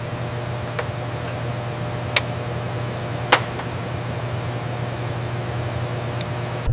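A steady low hum under an even hiss, broken by a few short sharp clicks; the loudest click comes a little over three seconds in.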